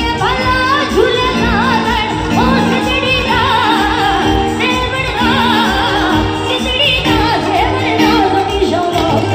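A woman singing a song live through a PA with a heavily ornamented, wavering melody line, backed by a small band of keyboard, tabla and drums.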